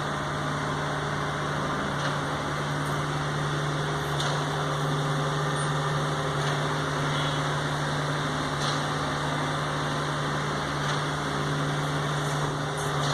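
Steady machine hum with one constant low tone and an even wash of noise over it.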